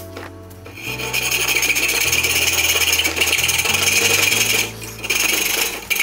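Hacksaw blade cutting through the metal shell of a car A/C line muffler can held in a vise: a steady rasp of back-and-forth strokes starting about a second in, with a brief pause about five seconds in.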